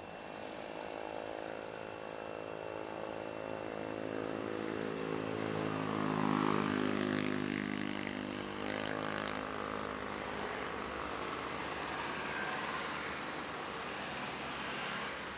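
Boeing 737-800's CFM56-7B turbofan engines at approach power as the airliner flies past on landing: a pitched engine whine over a rushing drone that builds, is loudest about six seconds in, and falls in pitch as it goes by.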